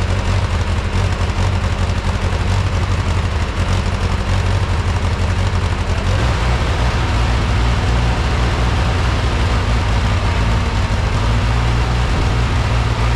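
1949 Ford 8N tractor's four-cylinder engine running steadily, a low, even engine note whose pitch shifts slightly about halfway through.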